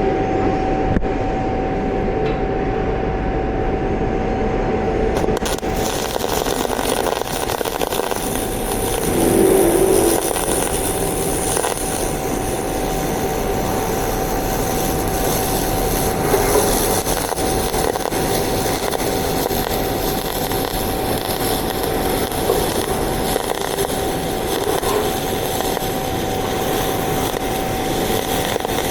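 MIG (GMAW) welding arc laying a fillet bead with solid wire: the arc strikes about five seconds in and then crackles and hisses steadily. A steady hum from the welding machine sounds throughout.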